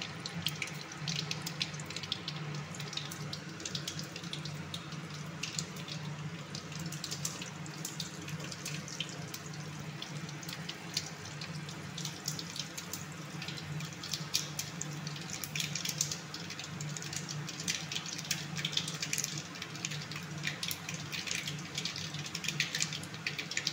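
Small spice seeds sizzling in hot oil in a kadai: a steady hiss with many quick crackles and pops as they fry.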